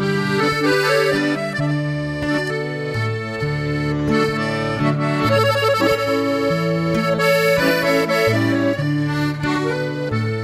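Instrumental introduction of a recorded havanera song: held melody notes and chords over a bass line that changes about once a second.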